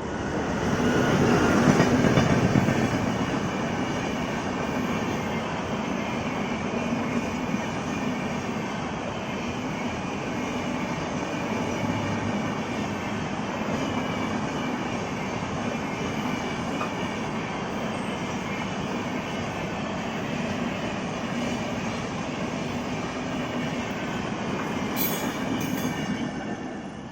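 A train running on rails: a steady rumble and rattle of wheels and carriages, loudest about two seconds in and fading away near the end.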